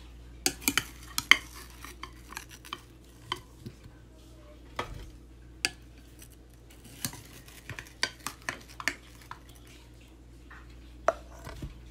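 A spoon clinking and scraping against a glass bowl as cubed watermelon is scooped out and dropped into a plastic blender jar, in irregular sharp taps, over a low steady hum.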